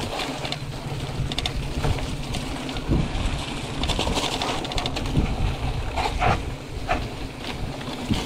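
Mountain bike rolling over a rough, rocky trail, its frame and parts rattling with many small clicks and knocks, over a steady low rumble of wind on the camera microphone.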